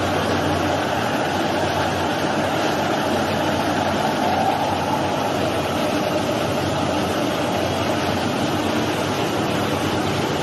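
Vertical glass washing machine of an insulating glass processing line running: its rotating brushes, blower and water pump make a steady, continuous machine noise.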